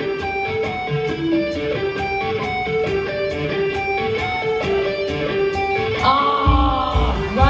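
Live band music: a picked guitar riff over a steady cymbal tick about twice a second. About six seconds in the band comes in fuller and louder with bass and drums.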